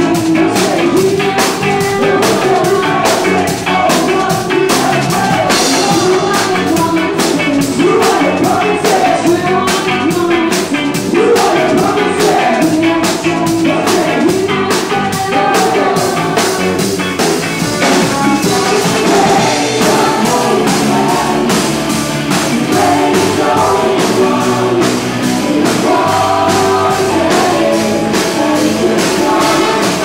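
Ska band with a horn section playing live: a quick, steady drum beat with guitar under singing.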